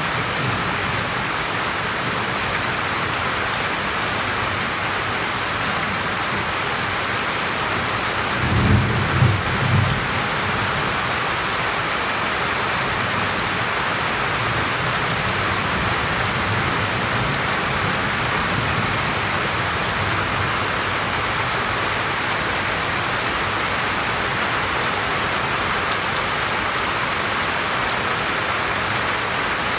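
Steady heavy rain heard from under a roof, falling on the roof and surrounding leaves. About nine seconds in a short, low rumble of thunder swells and fades, with fainter rumbling a few seconds later.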